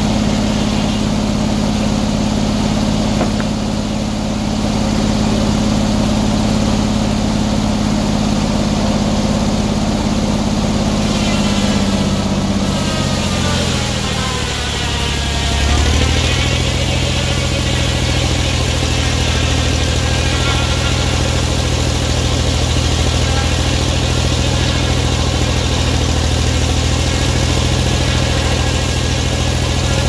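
Engine-driven circular sawmill running steadily. About twelve seconds in, the engine's pitch sags over a few seconds as the blade takes the cut through the log, then holds lower under load.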